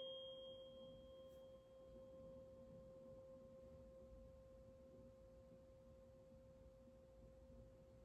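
A tuning fork ringing faintly after being struck, one pure steady tone slowly fading; a fainter high overtone dies away about a second in.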